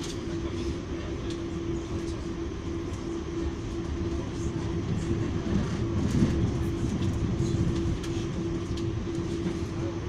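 Cabin noise inside an Auckland AM-class electric multiple-unit train on the move: a steady low rumble from the wheels and rails under a steady electric hum, with light clicks and rattles scattered through it. The rumble swells a little about halfway through.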